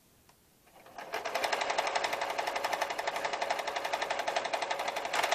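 Domestic lockstitch sewing machine starting up about a second in and stitching steadily at a fast, even rate of needle strokes.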